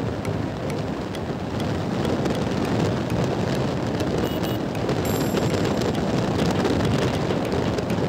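Wind rushing over the microphone of a Bajaj Pulsar NS160 motorcycle riding at road speed, with the bike's engine running under it. The wind gets a little louder about two seconds in.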